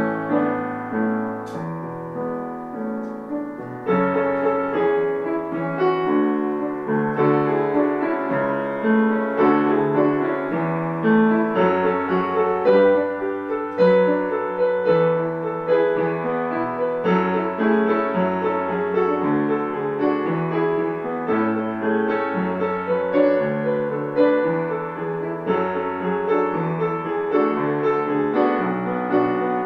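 Piano music: a continuous, flowing run of notes and chords without a beat.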